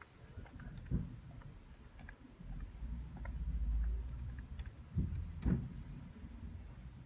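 Irregular light clicking on a computer's input devices, with a louder knock about a second in and two more around five seconds in, over a low hum.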